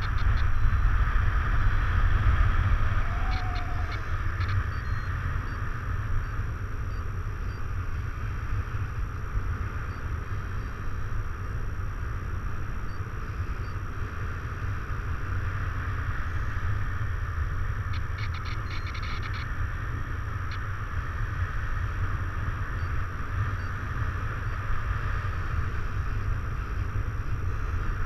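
Wind rushing over the camera microphone in paraglider flight: a steady low rumble with a hiss on top, a little louder for the first few seconds. A few faint clicks come through twice.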